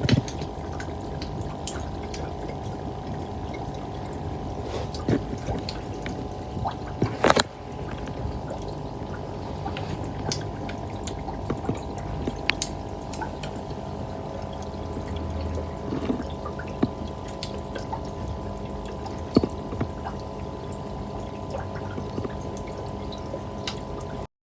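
Fancy goldfish gulping at the water surface in an aquarium, making scattered small pops and wet smacking bubble sounds, with a louder pop about seven seconds in. Under them runs a steady hum of the tank's equipment.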